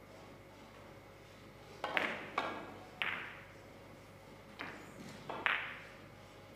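Carom billiard balls clicking against each other in a three-cushion shot: sharp clicks that ring briefly, in two groups of three, one about two seconds in and one past the middle.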